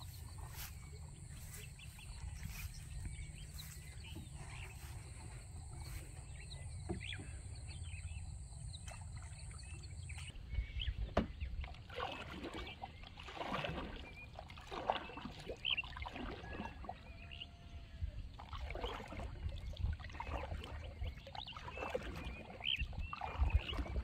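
Small rowboat being paddled across a lake: paddles dipping and water splashing against the hull, irregular and busier in the second half, over a steady low rumble.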